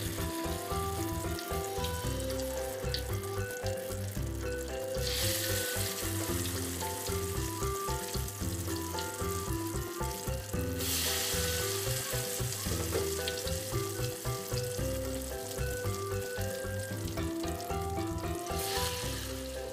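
Spring rolls frying in hot oil in a wok, a steady sizzle that swells sharply three times as more rolls go into the oil. Background music with a steady beat plays throughout.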